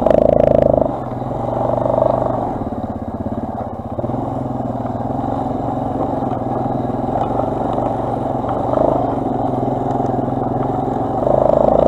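Quad bike engine running under way, its note swelling with the throttle: louder in the first second and again about two seconds in, steady through the middle, and louder again near the end.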